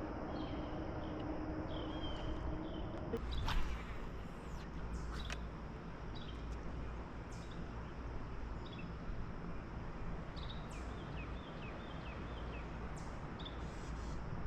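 Small birds chirping in short, repeated calls over a steady outdoor hiss. A low hum fades out about three seconds in, and a few sharp clicks come around three and a half and five seconds in.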